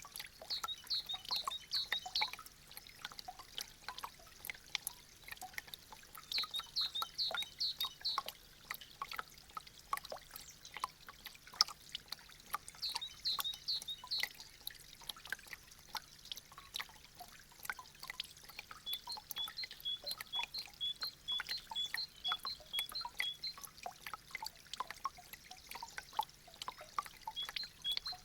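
Meltwater dripping from melting icicles: many irregular drops falling and splashing, with a trickle. Quick high chirps come in several short series over it.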